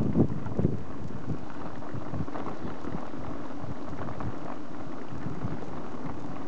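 Bicycle tyres rolling over a dirt-and-gravel track, heard from a handlebar-mounted camera: a steady rolling noise with many small ticks, mixed with wind on the microphone.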